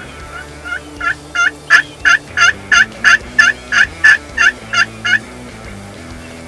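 Turkey yelping: a run of about fourteen yelps at roughly three a second. They start faint, grow louder over the first second or so and stop about five seconds in.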